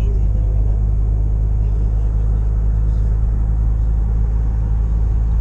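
Steady low rumble of a car's road and engine noise, heard from inside the cabin while cruising at highway speed.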